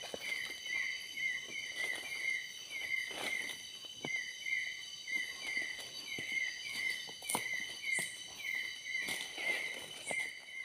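Night-time forest insect chorus: several steady high trilling tones, with a short chirp repeated about three times a second. Footsteps crunch through leaf litter and undergrowth at irregular intervals.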